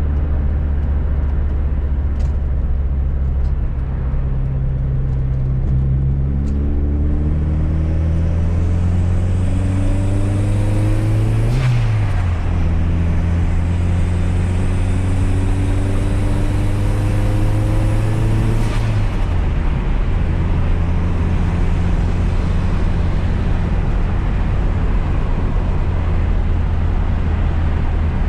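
Fiat Coupé 16V Turbo's turbocharged four-cylinder engine heard from inside the car, accelerating hard. The engine pitch climbs, falls sharply at an upshift with a short burst of hiss about 12 seconds in, climbs again and falls at a second upshift a few seconds later, then settles into steady cruising.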